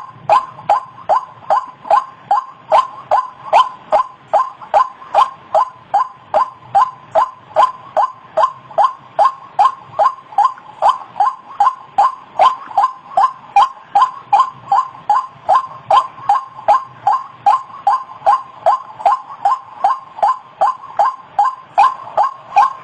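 White-breasted waterhen (ruak-ruak) calling: a monotonous, evenly paced run of short 'kru-ak' notes, about two to three a second, without a break.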